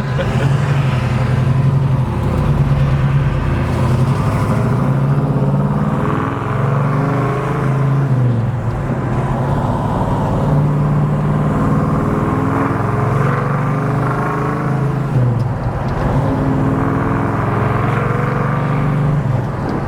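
1967 Chevrolet Chevelle's 396 big-block V8 running while driving, heard through its headers and Flowmaster dual exhaust, a steady engine note that shifts up and down in pitch several times with throttle and gear changes.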